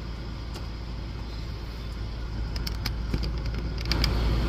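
Steady low rumble of a car heard from inside the cabin, with a few light clicks about two and a half to four seconds in. The rumble and hiss grow louder near the end.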